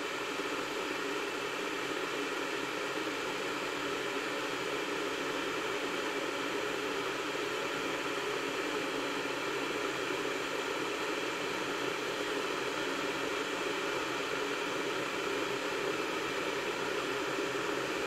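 Electric water heater heating water: a steady, even hiss that does not change.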